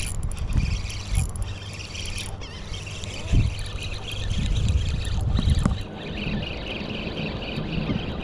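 Shallow water sloshing and trickling, with gusts of wind rumbling on the microphone that swell twice in the middle. Small birds chirp over it.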